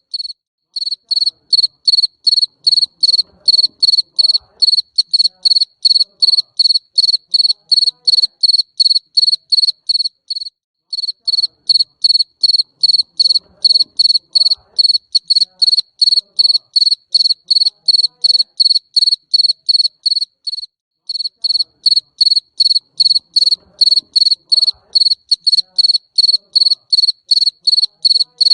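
Jangkrik mbering cricket chirping steadily, about three loud, high-pitched chirps a second. Brief breaks about every ten seconds, where the same stretch of chirping starts over.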